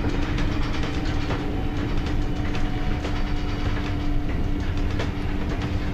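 City bus running, heard from inside the cabin: a steady drone and rumble from the drive and tyres, with one steady whining tone held throughout and light rattles.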